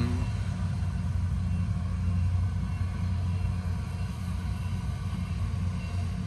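A steady low rumble, like an engine running without change.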